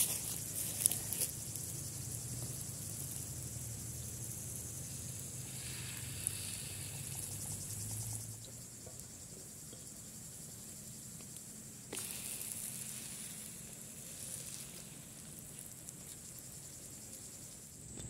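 Small batter cakes frying in an oiled pan over a wood fire, a soft steady sizzle, with a few sharp clicks near the start. Insects trill steadily in the background.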